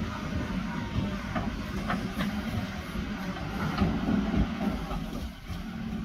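JCB backhoe loader's diesel engine running under load as the backhoe arm digs and lifts a bucket of soil, with a few short knocks scattered through the engine noise.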